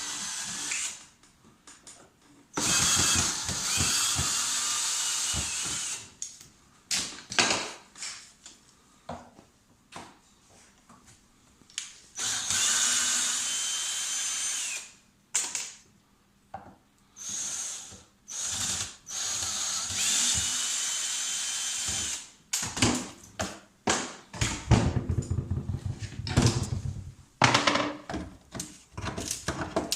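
Power drill run in repeated bursts of a few seconds, its motor whine steady at speed. Near the end it comes in many short trigger blips, as when driving or backing out screws.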